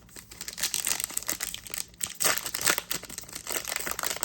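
Trading-card booster pack wrapper crinkling and tearing as it is opened by hand, a dense crackle that is loudest about two seconds in.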